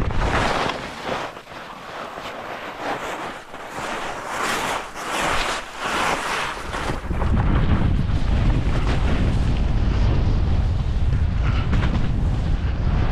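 Skis swishing over snow in a run of turns, then wind buffeting the microphone, a loud low rumble from about seven seconds in as speed builds.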